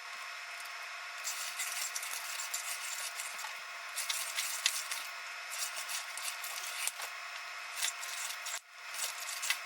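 Small screws being driven into a car radio's display assembly with a hand tool: several spells of scratchy rasping and small clicks as each screw is turned, over a steady faint hum.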